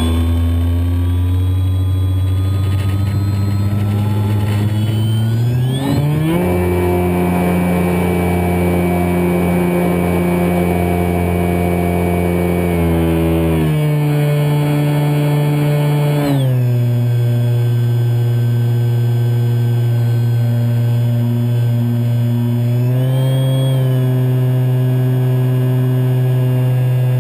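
Scorpion 4020-10 brushless electric motor turning an 11x10 APC propeller on a Kyosho Spitfire 50 EP model plane, heard from a camera in its cockpit. Its whine rises over the first six seconds as the throttle opens for the takeoff roll, holds high, drops in two steps around the middle, and steps up again near the end as the throttle is changed.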